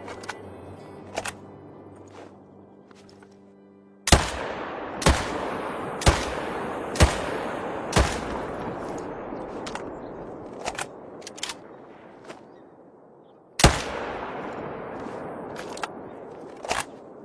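.308 rifle firing: five shots about a second apart, each with a long echoing tail, then a single shot several seconds later. Fainter sharp clicks fall between the shots.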